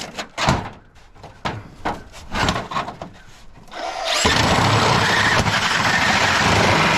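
A few sharp metal knocks and clanks, then about four seconds in a handheld angle grinder starts and runs steadily, cutting into scrap metal.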